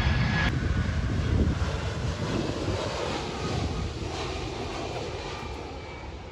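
Jet airliner passing overhead, its low engine rumble fading steadily as it moves away.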